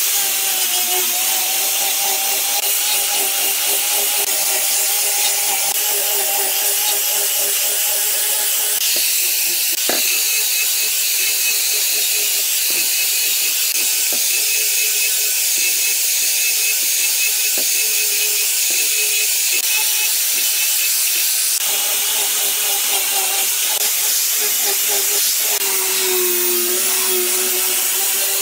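Handheld angle grinder with a sanding disc running continuously, sanding a wooden ring: a steady motor whine over the hiss of abrasive on wood. The sound changes about nine seconds in and again about twenty-one seconds in as the disc moves between the ring's face and its edge.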